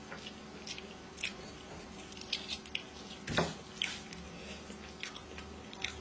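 Close-up eating sounds: wet chewing and lip smacks, with the squish of rice being mixed by hand on a plate, in short irregular clicks, loudest about three seconds in.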